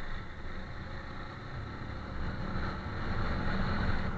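Honda CG Titan 150 motorcycle's single-cylinder four-stroke engine running steadily under way, heard from the rider's seat, getting louder over the last couple of seconds.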